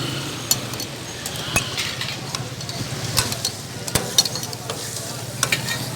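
Liver frying and sizzling in oil on a tawa griddle while it is stirred, with irregular sharp clinks of a spatula striking the pan.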